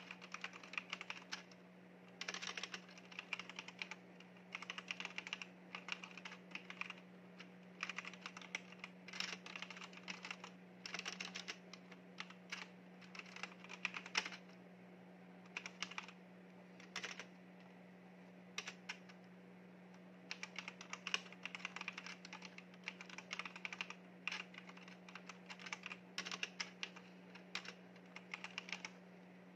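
Typing on a backlit mechanical keyboard: rapid key clicks in bursts of a second or two, broken by short pauses, over a steady low hum.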